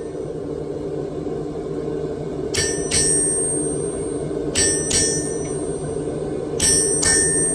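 Hand hammer blows on steel at the anvil, struck in pairs of two quick blows about two seconds apart, three pairs in all, each ringing with a bright bell-like tone. A steady low drone runs beneath the strikes.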